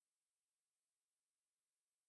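Near silence: only a very faint, steady hiss.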